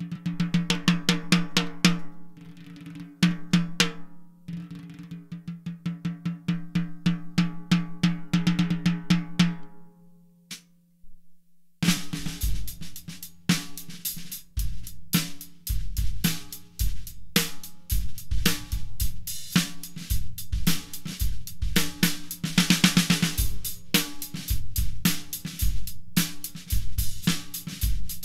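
A 14x10 deep yellow pine segmented snare drum played solo, with fast strokes and rolls over a steady ringing low tone, dying away about ten seconds in. About two seconds later a full drum-kit groove starts, with bass drum, hi-hat and cymbals around the snare.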